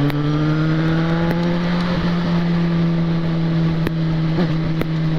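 Yamaha XJ6's 600 cc inline-four engine pulling under way on the road, its note rising slightly for the first second or so as the bike speeds up, then holding steady. Wind rushes over the helmet-mounted microphone.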